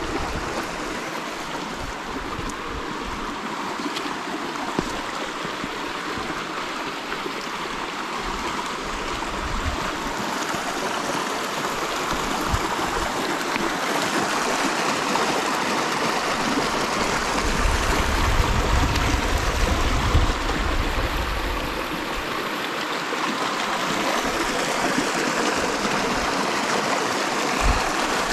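East Verde River's shallow water running and gurgling over rocks, a steady rush that grows somewhat louder toward the middle. A brief low rumble comes about two-thirds through.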